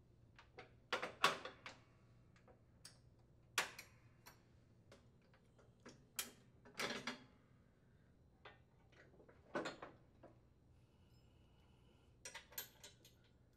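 Light metal clicks and clinks, scattered through and bunched together near the end, as washers and hairpin retaining pins are slipped onto the riding mower deck's support-arm pins.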